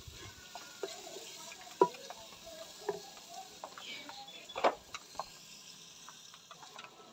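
Spiced onion-tomato masala sizzling as it fries in ghee in a clay handi, stirred with a wooden spoon. A few sharp knocks sound over the sizzle, the loudest about two seconds in and another a little past halfway.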